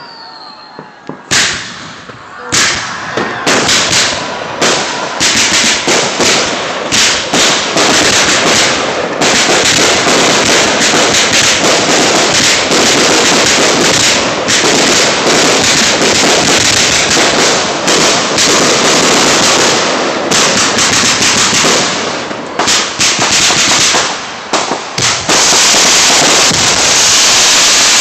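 Aerial fireworks bursting loudly: separate sharp bangs from about a second in, quickening into a dense, continuous barrage of bangs and crackle from about nine seconds on.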